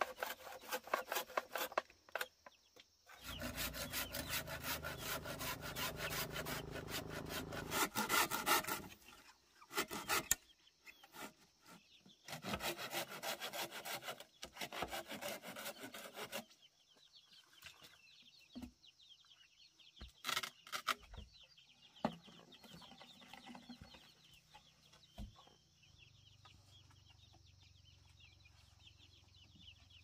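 Saw cutting through wood in two spells of rapid strokes, followed by a few scattered knocks.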